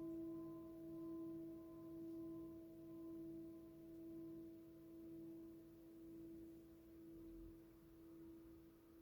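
Himalayan singing bowl ringing on after a soft strike: one low tone with fainter higher overtones, wavering gently in loudness about once a second as it slowly fades.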